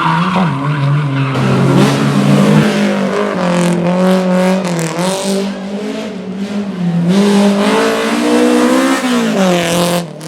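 Rally car engine revving hard, its pitch rising and falling again and again as the driver works the throttle and gears through the stage. The sound cuts off briefly near the end.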